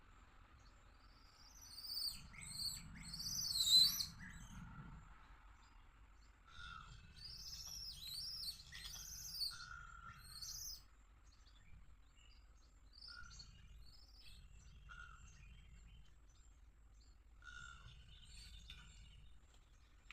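Wild birds chirping and calling in two bouts of quick, high, arching notes, then fewer, fainter notes.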